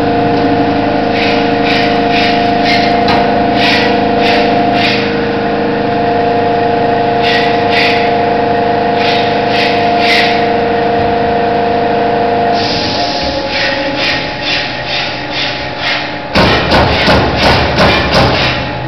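CNC punch press running: a steady machine hum with repeated sharp punch strokes. After about two-thirds of the way the hum changes and the strokes come faster, turning into a fast, loud run of strokes near the end.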